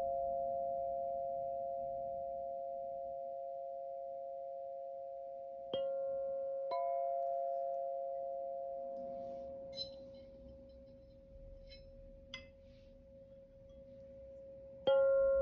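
Singing bowls struck and left to ring, long steady tones that slowly fade. A fresh strike comes about six seconds in, another a second later, and a third near the end, with a few faint ticks in between.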